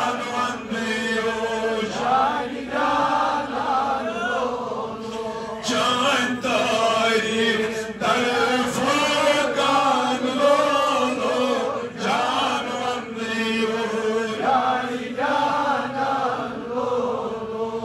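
Male voice chanting a Kashmiri devotional naat (a hymn in praise of the Prophet), in long melodic phrases with brief breaks between them, over a steady held tone.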